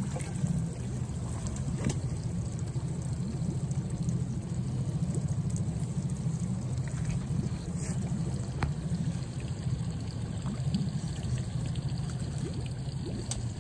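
Water splashing and lapping at the side of a boat over a steady low rumble, as a hooked salmon is played near the net.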